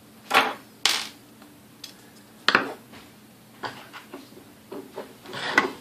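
Clinks and knocks of metal mixer parts and hand tools being handled and set down during the teardown: two sharp knocks in the first second, another at about two and a half seconds and one near the end, with lighter taps between.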